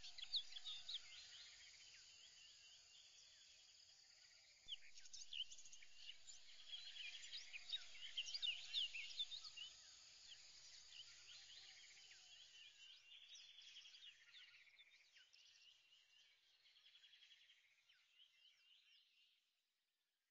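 Faint birdsong: many birds chirping in quick, short calls over a light background hiss. It gets a little louder about five seconds in and fades out near the end.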